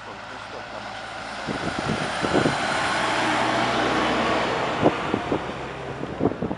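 A vehicle passing by, its noise swelling to a peak about halfway through and then fading away. A few short knocks sound over it.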